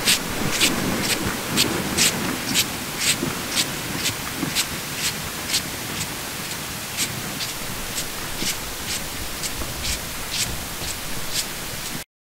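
Footsteps crunching on cold, packed snow, about two steps a second, growing fainter as the walker moves away, over a steady hiss. The sound cuts off abruptly near the end.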